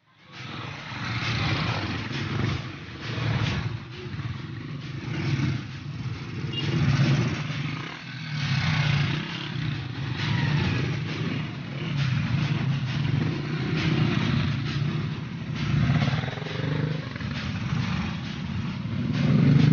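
A motor vehicle running steadily, its low rumble swelling and easing every second or two.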